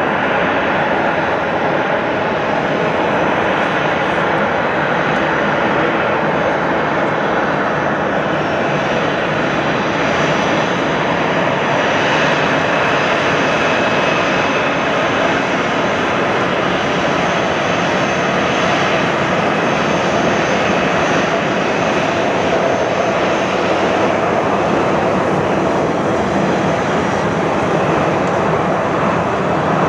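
Jet airliner engines running with a loud, steady rushing noise and a faint high whine.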